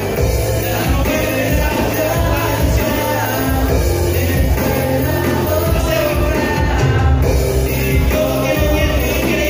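Live amplified worship music: a man singing into a microphone over an electronic keyboard and a full band sound with held low bass notes.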